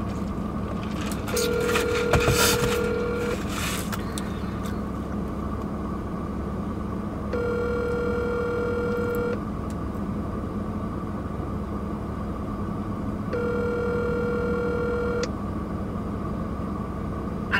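Telephone ringback tone of an outgoing call: three rings, each about two seconds long and coming every six seconds, over a steady hum in a car cabin.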